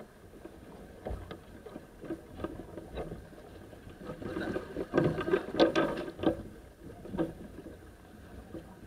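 Sailing yacht under way: a steady rush of water and wind, with scattered knocks and clatter from crew handling lines and gear on deck, thickest and loudest from about four and a half to six and a half seconds in.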